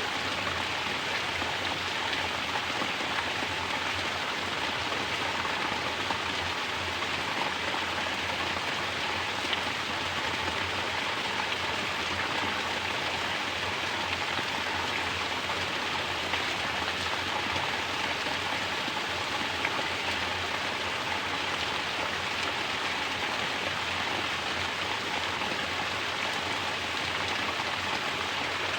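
Mountain water pouring from a natural shower and splashing down, a steady, unbroken patter of falling water.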